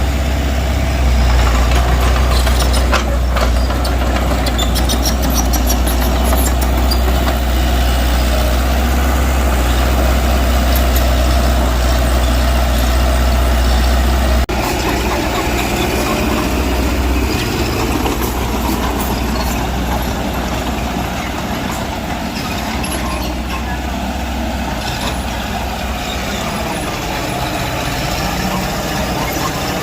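Heavy diesel engines of a bulldozer and a dump truck running steadily while working, a continuous low rumble that changes abruptly about halfway through.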